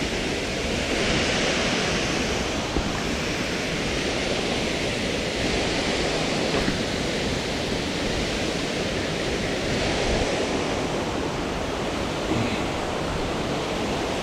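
Steady rush of falling water from a waterfall, a loud even roar with slow swells.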